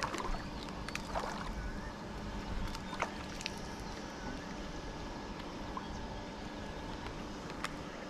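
Steady outdoor background noise with a few faint steady tones, broken by scattered short clicks and brief chirps.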